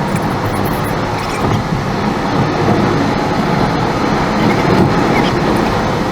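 Steady road and engine noise of a car driving, an even rumble with no breaks.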